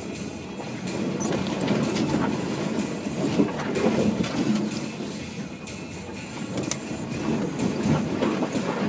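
Subaru XV driving slowly over a rough bush track: a constant uneven rumble of the tyres and suspension with many small knocks and rattles.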